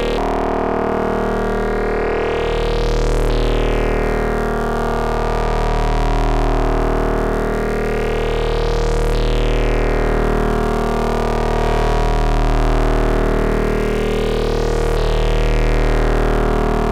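Eurorack modular synthesizer drone: several oscillators mixed into a sustained chord, one ring-modulating another, heard dry without any distortion. The brightness swells up and falls back about every six seconds.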